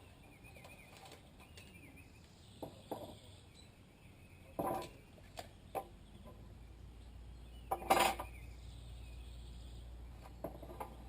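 Scattered knocks and clatters, as of boards and tools being handled, the loudest about four and a half and eight seconds in. Faint bird chirps come in between.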